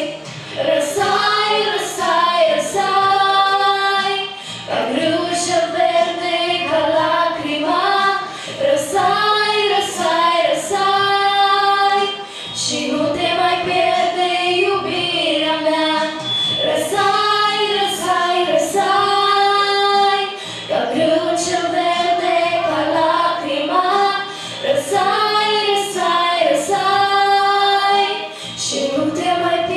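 Young girls' voices singing a melodic song through microphones, in phrases of long held notes with short breaths between them.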